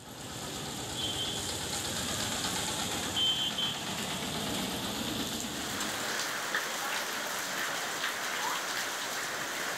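Steady rain falling on a wet street and rooftops, with vehicle traffic rumbling past in the first half. Two short high beeps at about one and three seconds in.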